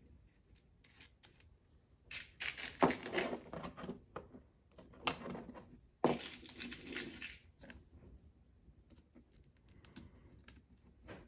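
Irregular clicks, taps and short scrapes of small hardware being handled: bolts with T-nuts fitted through a Y-axis stiffener panel and slid into the slot of a CNC machine's Y rail.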